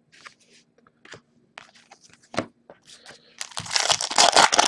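Light clicks and rustles of trading cards being handled, then the foil wrapper of an Upper Deck hockey card pack being torn open and crinkling, loudest from about three and a half seconds in.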